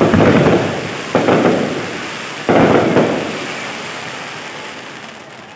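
Fireworks bursting: three sharp booms about a second apart, each trailing off in a rumble that fades away near the end.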